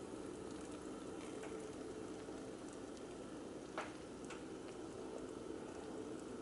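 Faint steady hiss, with a light click a little under four seconds in and a softer click about half a second later.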